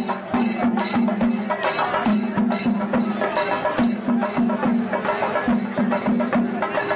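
Traditional festival percussion music: a steady, fast beat of sharp strokes with pitched drum notes in quick runs of three or four.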